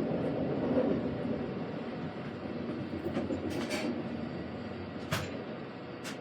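CN container train rolling by, a steady rumble of wheels on rail. Several short, sharp high squeaks or clicks cut in over it from about halfway through.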